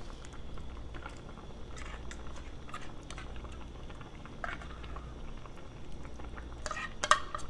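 A spoon scooping canned tuna out of a tin into a pot of stew: soft wet squelches and small scrapes of the spoon against the can, with a louder knock near the end.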